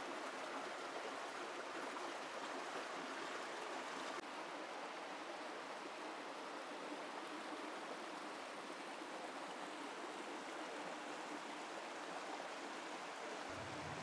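A canyon stream running: a faint, steady rush of water.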